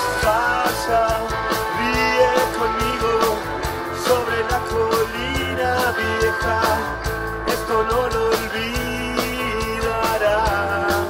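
Rock band playing live: electric guitars and a drum kit with a steady beat.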